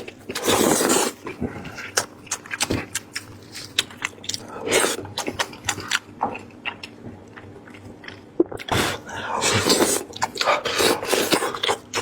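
Close-miked eating of braised lamb head meat: wet chewing and mouth smacks as a string of sharp clicks, with several louder noisy bursts near the start, about halfway and toward the end.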